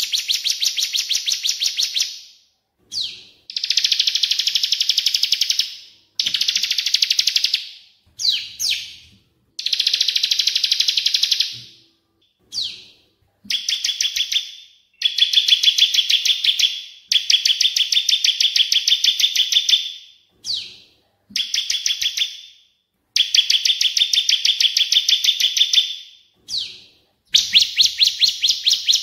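Cage-bird song tutor recording of cililin (crested jay) and ciblek (bar-winged prinia): rapid, buzzy trilled phrases of one to three seconds, repeated about ten times with short gaps. Brief down-sliding notes fall between some of the phrases.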